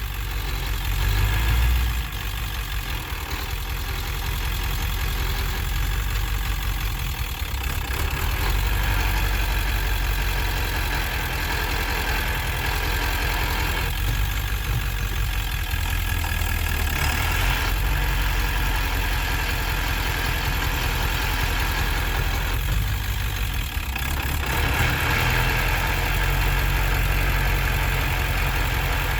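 1999 Ford F-250's 7.3L V8 turbo diesel running as the truck is driven slowly in 4x4 low range and shifted up through the gears of its ZF6 manual transmission, the sound changing briefly at each shift. It carries the unexplained driveline noise that appears in gear under load with no throttle, which the owner cannot place.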